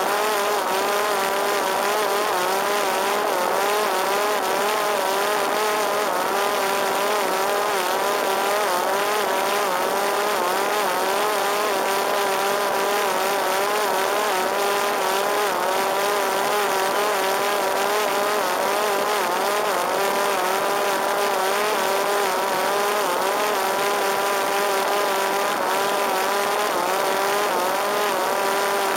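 Parrot Disco fixed-wing drone's electric motor and rear pusher propeller running steadily in flight: a whine whose pitch wavers slightly up and down, over a steady hiss of air rushing past.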